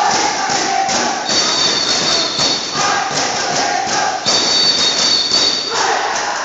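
Spectators cheering and shouting in a large hall over a rapid clatter of clapping and noisemakers, with two long shrill whistle blasts, the first about a second in and the second just past the middle.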